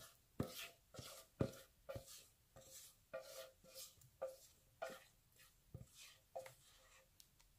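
Rubber spatula scraping wet cookie batter out of a stainless steel bowl, with faint strokes about twice a second and a short ring from the metal after each. The strokes fade near the end.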